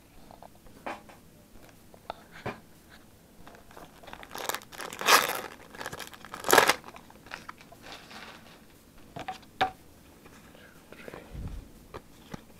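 Foil wrapper of a Pokémon TCG Generations booster pack crinkled and torn open, loudest from about four to seven seconds in, with softer rustles and clicks of handling around it.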